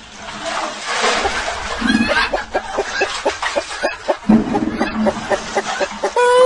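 Cartoon fight sound effects: a noisy scuffle with a rapid flurry of blows, about four or five a second through the middle, and a short held pitched cry or tone near the end.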